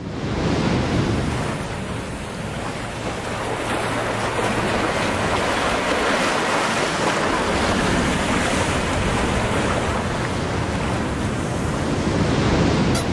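Steady rushing noise of air and engine from an aircraft in flight, with a low hum underneath.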